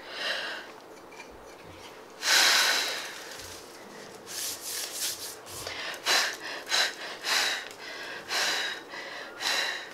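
Breath blown out in puffs to clear loose foil confetti away from a confetti-coated slime ball. There is one long blow about two seconds in, then about ten short puffs.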